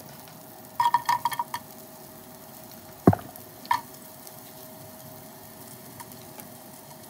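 Butter sizzling gently in a nonstick pot over a faint steady hum. About a second in, a short clatter comes as sliced onions are dropped into the hot butter. A sharp knock about three seconds in is followed by a smaller one.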